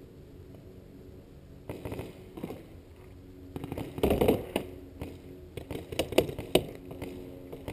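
Scattered sharp pops of paintball markers firing and paintballs striking during play. The pops come a few at a time, with the loudest cluster about four seconds in and several more near the end.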